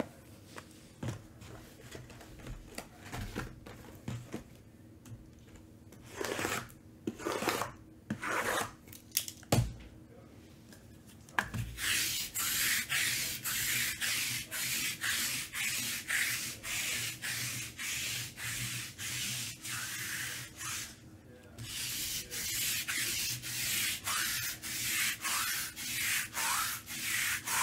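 Rhythmic rubbing or scraping strokes, about two a second, in two long runs with a short pause between them, after a few scattered scuffs and knocks.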